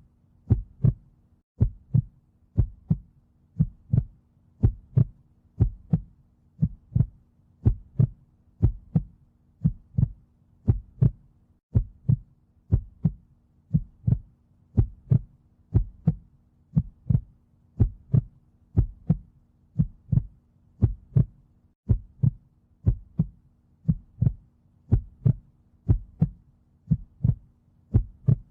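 A heartbeat thumping in a steady, even rhythm, each beat a deep double thump (lub-dub).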